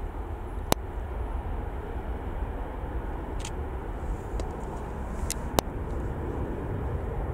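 Twin jet engines of an Airbus A330 airliner at takeoff power as it climbs out: a steady, even rumble. A few sharp clicks cut across it, one under a second in and another a little past five seconds.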